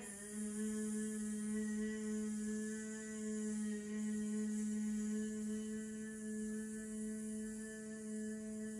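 A woman humming one long, steady, unbroken note with her mouth closed on the out-breath: the 'bee noise' of bee breath (bhramari pranayama).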